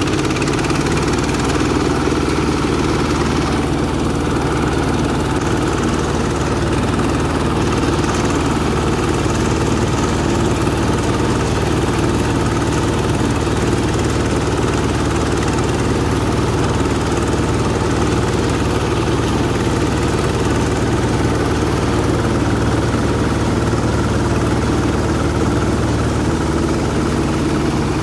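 Quick H-140R mini rice combine harvester running steadily while it cuts and threshes standing rice, its engine holding a constant pitch and level.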